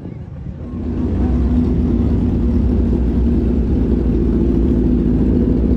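Drag-racing sport bike engine running steadily and loudly. It comes in about a second in.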